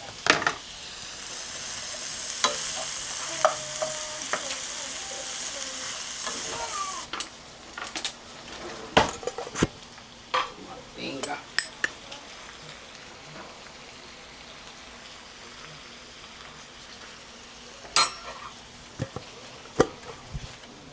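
Food frying in butter in a pan on the stove and being stirred with a utensil. The sizzle is strong for about the first seven seconds, then quieter, with scattered knocks of the utensil against the pan.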